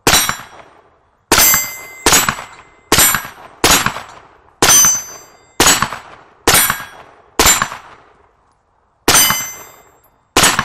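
PSA JAKL AR-style rifle firing eleven single shots at an unhurried pace, about one a second with a slightly longer gap near the end. Each crack is followed by a metallic ring.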